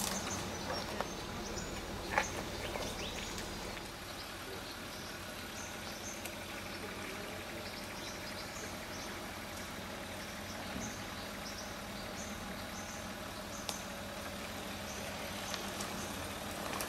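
Land Rover Discovery 4 engine running low and steady as it crawls over a rough dirt track. There is a single sharp knock about two seconds in, and short bird chirps come and go.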